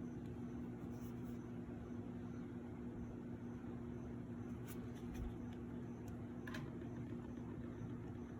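Steady low hum and hiss of room tone, with a few faint clicks around the middle.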